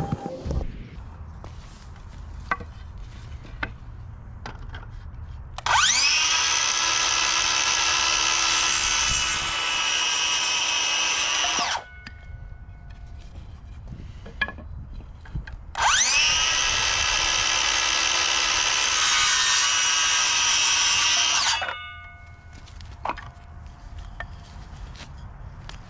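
Cordless circular saw cutting through a wooden dowel twice. Each time the motor whine rises as it spins up, holds steady for about six seconds, then cuts off sharply, leaving a short fading whine as the blade winds down.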